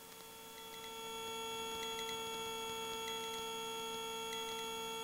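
Cabri G2 helicopter's drivetrain giving a steady hum with a high whine, growing louder about a second in as power comes on for the run, then holding steady; a few faint ticks.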